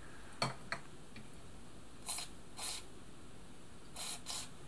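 Aerosol can of CRC 5-56 penetrating oil sprayed through its straw in four short hisses, in two pairs, onto the seized stitch width dial shaft of a sewing machine to free it up. Two light clicks come before the first spray.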